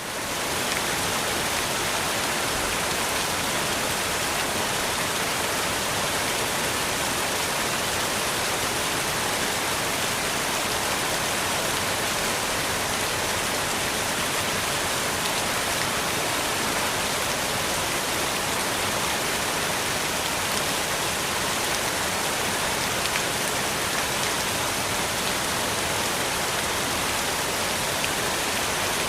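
Large fountain: a steady rush of falling and splashing water, even and unchanging, fading in at the very start.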